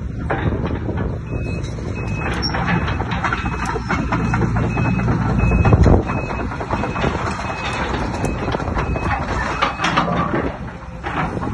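Case CX250C excavator's diesel engine and hydraulics running under load as the boom and bucket work, with a travel alarm beeping about twice a second as the machine tracks. The machine is loudest just before halfway, then eases off.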